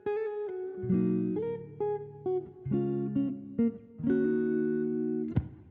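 Outro music: a guitar playing plucked notes and chords.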